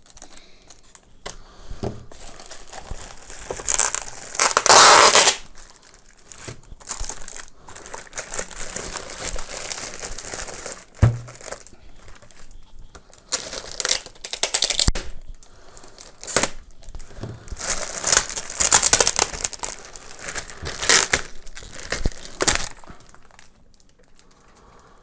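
Plastic packaging bag crinkling and rustling in irregular bursts as a soundbar is handled and pulled out of its wrapping, loudest about five seconds in. A short dull knock about eleven seconds in.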